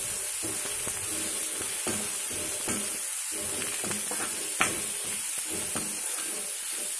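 Chopped onions sizzling in hot oil in an aluminium kadai while a spatula stirs and scrapes them around the pan, with one sharper clink of the spatula against the pan a little past halfway. The onions are softening in the oil.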